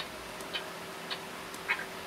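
Toy baby doll's electronic bottle-feeding sound: short sucking chirps repeating about twice a second, over a faint steady hum.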